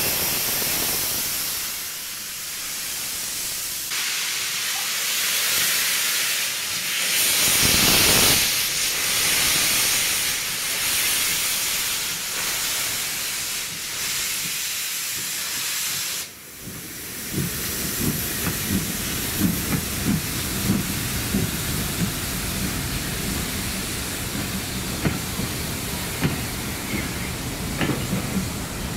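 Ex-GWR Hall class 4-6-0 steam locomotive hissing steam steadily, loudest about eight seconds in. After a brief dip about sixteen seconds in, the train's coaches roll past with a low rumble and many irregular wheel clicks.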